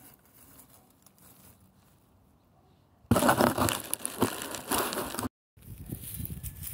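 Dry grass and leaves crackling and rustling loudly close to the phone's microphone as the phone is moved down among them, starting suddenly about three seconds in after a quiet stretch. The sound cuts out for a moment about two seconds later, then the rustling carries on more softly.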